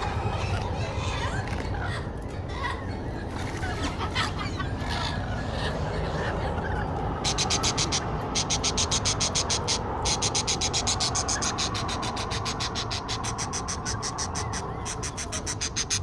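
Rainbow lorikeets chattering over a low background rumble. About seven seconds in, a rapid, even, high-pitched pulsing sets in and carries on, briefly breaking off once, as the most prominent sound.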